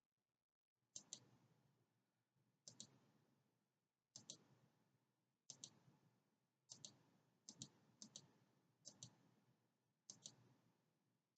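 Faint computer mouse clicks, about nine in all at a rate of roughly one a second, each a quick double tick of press and release.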